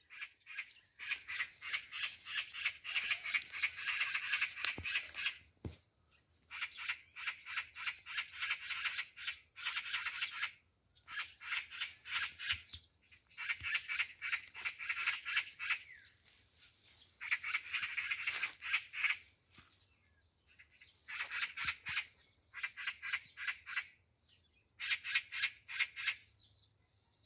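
Oriental magpies giving harsh alarm chatter: rapid rattles of quick notes in bursts of one to four seconds with short pauses between. The magpie pair is scolding a cat hidden in the undergrowth.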